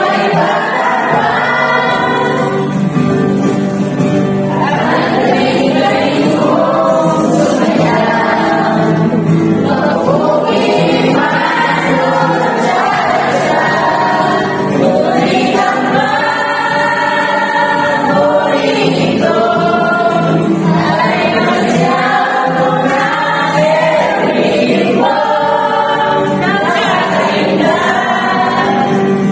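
A group of young men and women singing a song together as a small choir, accompanied by an acoustic guitar.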